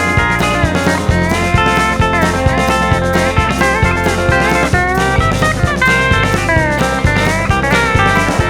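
Instrumental break in a country-rock song: a lead electric guitar playing bending lines over bass and a steady drum-kit beat.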